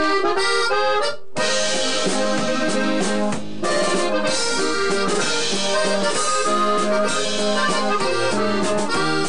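Norteño band playing an instrumental intro led by a diatonic button accordion. The accordion plays its melody alone for about a second, then the rest of the band comes in with bass underneath.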